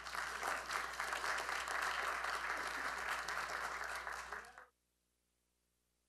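Audience applauding with dense clapping, cut off abruptly near the end.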